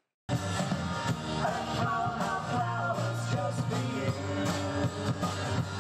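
Live band music from a small outdoor stage, guitars played through PA speakers with a voice singing. It starts abruptly about a third of a second in.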